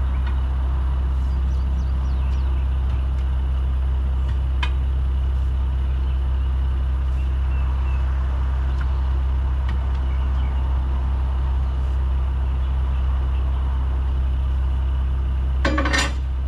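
Steady low drone of an idling truck engine, with a faint metallic click partway through and a sharp clank near the end as a tire iron works a truck tire's bead onto the rim.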